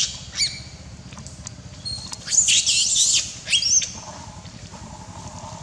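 Baby macaque screaming in high, wavering squeals: a short one about half a second in, then a longer run of squeals from about two to three and a half seconds in.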